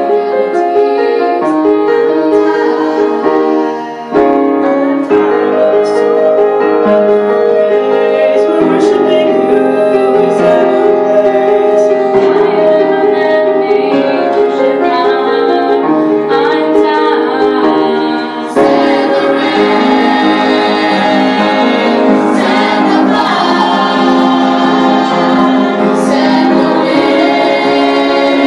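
A small gospel vocal group, mostly women's voices, singing in harmony into handheld microphones over an instrumental accompaniment. The sound drops briefly twice, about four seconds in and again about two-thirds of the way through, between phrases.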